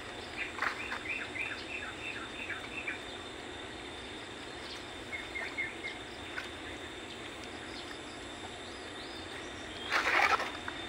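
Rural outdoor ambience. A bird gives a quick run of short chirps, about four a second, in the first few seconds and a few more around the middle, over a steady high insect whine. A short louder sound comes about ten seconds in.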